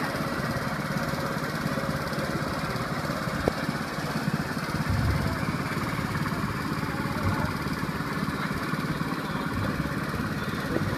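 A small engine running steadily, with a fast even pulse and a short sharp tap about three and a half seconds in.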